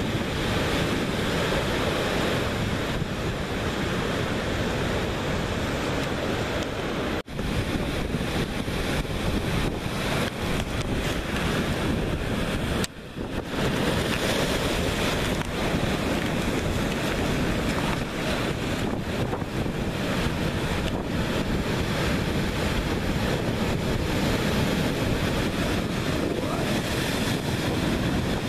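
Rough surf breaking over a rocky reef: a continuous wash of crashing waves and foam, with wind buffeting the microphone. The sound cuts out briefly twice, about 7 and 13 seconds in.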